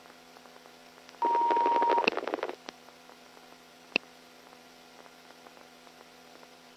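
Police radio channel between transmissions. About a second in, a short burst of radio static carries a steady beep lasting just under a second. After that there are only brief chirps and squelch clicks, about three seconds apart.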